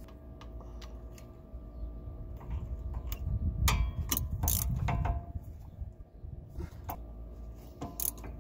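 Hand ratchet with a universal-joint socket clicking in short runs as the 15 mm bolts on the inner CV axle flange are tightened. Sharp metal clinks come in among the clicks, thickest about halfway through.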